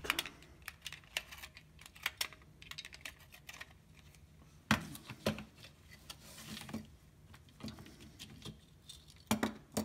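Scattered light clicks and taps of a small screwdriver and fingers working on the plastic housing and circuit board of a Hantek CC-65 current clamp as the board is lifted loose, with a sharper knock about five seconds in and another near the end.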